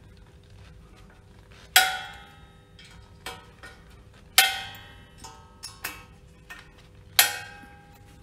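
Three sharp metallic clinks that ring briefly, about two and a half seconds apart, with softer ticks between them: a screwdriver and screws knocking against the pump's sheet-metal coupling guard as the guard screws are fitted.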